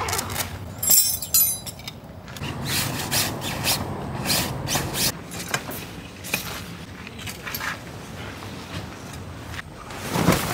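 Metal tent stakes being knocked loose with a peg hammer and pulled from stony ground: a run of sharp metallic clinks about a second in, then a string of separate knocks and scraping. Near the end the tent's canvas is dragged and rustles as it comes down off the frame.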